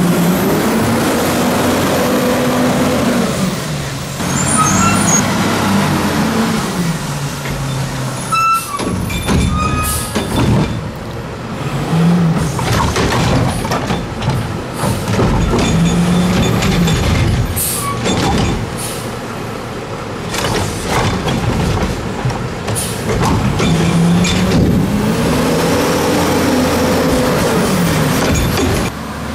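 Wittke Starlight front-loading garbage truck on a CCC LET2 chassis working: the engine revs up and falls back near the start and again near the end, as when it is revved to drive the hydraulics. Clanks and knocks and short air-brake hisses come in between.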